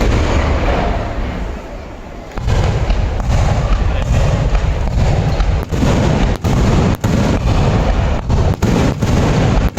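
Fireworks display: aerial shells bursting, turning about two and a half seconds in into a dense run of booms that merge into a continuous loud low rumble.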